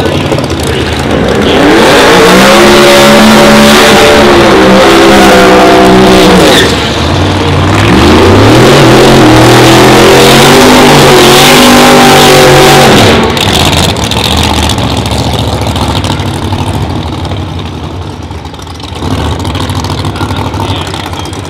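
Pro Mod drag car doing a burnout: the engine revs up and holds high while the rear tyres spin. It does this twice, each time for about four to five seconds with a short drop between, then falls back to a lower, lumpy running.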